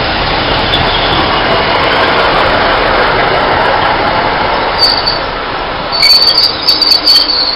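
Class 156 diesel multiple unit moving slowly past, a steady rumble of engine and wheels. From about five seconds in, a high squeal of wheel flanges against the rail comes and goes as the train takes the curve.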